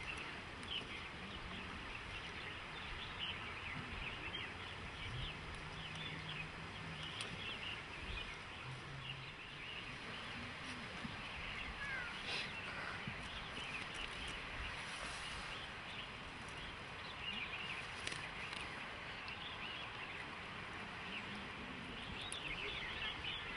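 Outdoor ambience filled with a continuous chatter of many small birds chirping over a steady background hiss.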